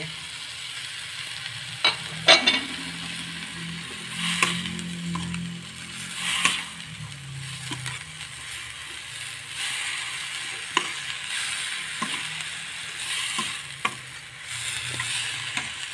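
Bean sprouts and fried tofu sizzling in a wok as they are stir-fried, with a metal spoon scraping and clinking against the wok every second or two.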